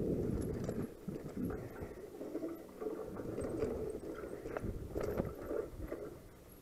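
Mountain bike ridden fast over a dirt forest trail: tyres rumbling on the ground and the bike rattling and knocking over bumps and roots. The rumble is heaviest in the first second, after which irregular sharp knocks dominate.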